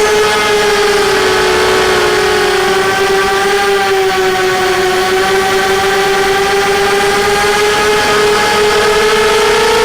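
FPV quadcopter's motors and propellers whining in flight, a steady pitched buzz that sinks slightly in pitch early on and creeps back up near the end.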